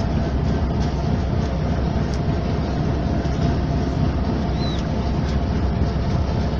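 Boat engine running steadily, a low rumble with a faint steady hum, heard from on board.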